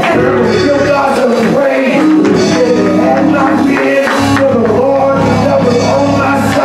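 Music with a voice singing over it, held over a steady low instrumental backing.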